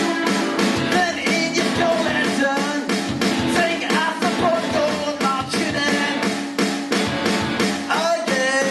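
Live rock music from an electric guitar and drum kit: a steady driving beat with a melody line sliding and bending in pitch above it.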